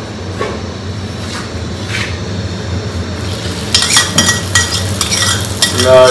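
Cooking in a pan: food sizzling while a utensil stirs it, with sharp metal clinks from about four seconds in.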